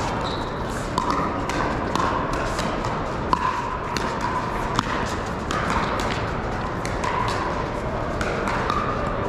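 Pickleball paddles striking plastic balls: irregular sharp pops from the rally in front and from neighbouring courts, the two loudest about three and five seconds in, over steady background chatter of many people in a large hall.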